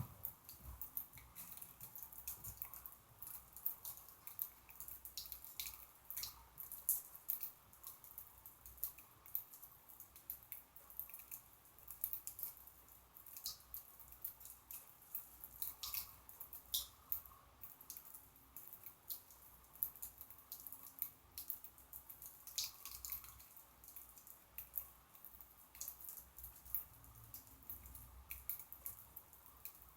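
Pet birds husking millet seeds from a millet spray: rapid, irregular small clicks and crackles of seeds being cracked and picked at.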